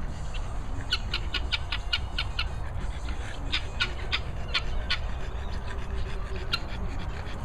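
Helmeted guineafowl calling in two runs of harsh, rapid clicking notes, about six a second, with a few single notes later, over a steady low background rumble.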